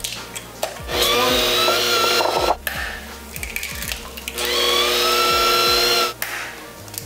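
Electric hand mixer beating eggs into creamed butter and sugar for cake batter. It runs in two bursts of about a second and a half, each with a short rising whine as the motor speeds up.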